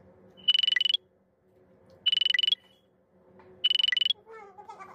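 Electronic alarm-type buzzer sounding three times, each a harsh, pulsing high beep about half a second long, roughly a second and a half apart. Right after the third comes a short, quieter wavering sound that falls in pitch.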